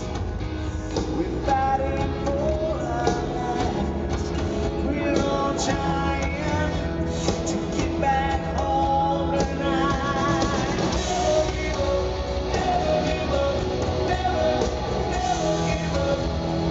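Rock band playing live, with sung vocals over electric guitar and drums.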